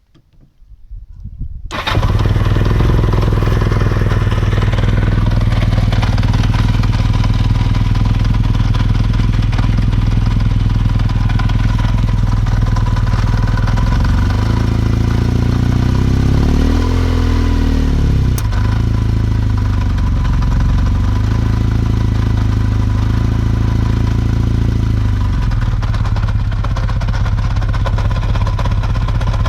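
Kawasaki KZ750 motorcycle engine started cold, catching about two seconds in and then running steadily, with the revs rising and falling a few times in the middle. This is the engine's noise when cold.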